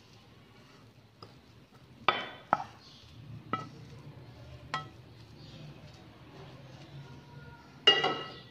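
A glass bowl clinking as cooked stuffing is scraped into it from the pan: about five sharp, ringing knocks against the glass, the loudest near the end, with soft scraping between them.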